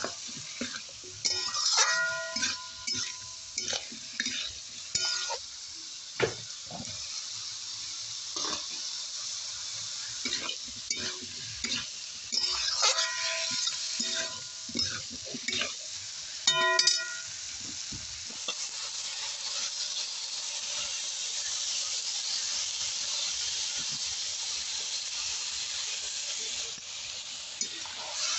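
Spinach, cauliflower and potatoes sizzling in hot oil in a metal kadhai. A metal ladle stirs and scrapes them, clinking against the pan so that it rings. For the last ten seconds or so only the steady frying sizzle remains.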